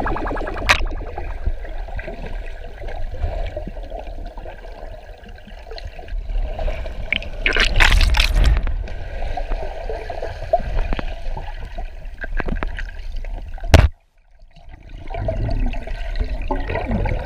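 Underwater water noise from a snorkeler swimming, picked up by a submerged GoPro: a low rumble with gurgling bubbles and small clicks, and a louder rush of bubbles about eight seconds in. A sharp knock comes near the end, followed by a moment of near silence before the water noise returns.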